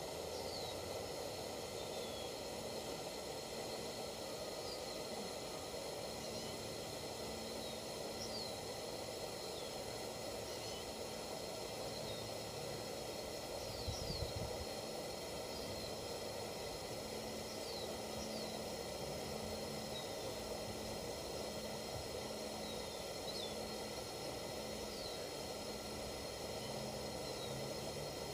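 Coleman 238B pressure lantern burning with a steady hiss, with short bird chirps scattered throughout. A soft low thump comes about halfway through.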